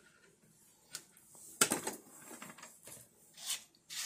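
Objects being handled and set down on a desk: a sharp click about a second in, a louder clunk just after, then a couple of softer knocks and scrapes near the end.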